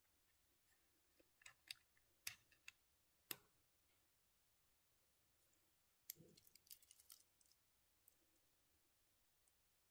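Faint clicks and light metallic rattles from handling a stainless-steel G-Shock watch and its link bracelet: a few sharp clicks between about one and three and a half seconds in, then a short run of quick clicks about six seconds in.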